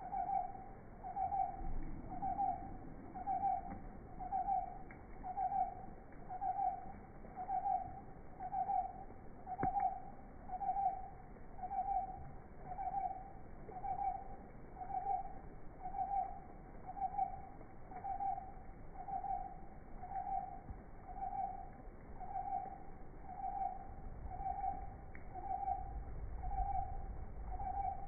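A steady series of short hoot-like notes, all at the same middling pitch, repeating about once a second without a break. A faint low rumble comes in near the end.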